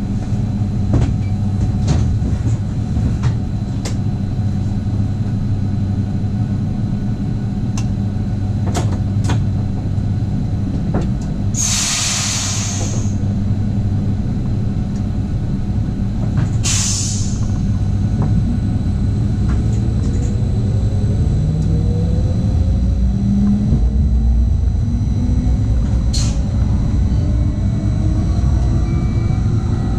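Regional passenger train heard from the driver's cab: a steady low hum, two short air hisses around the middle, then from about two-thirds through a whine rising in pitch as the train's drive pulls it away and gathers speed.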